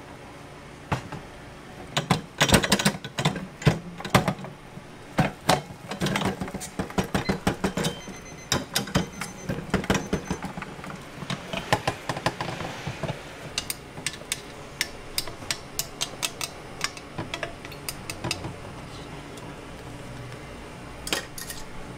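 Hong Kong egg waffle iron clanking as it is swung over and turned on its swivel stand and opened, with a metal skewer knocking against the pan: many irregular metal clicks and knocks, densest in the first half, with two more near the end.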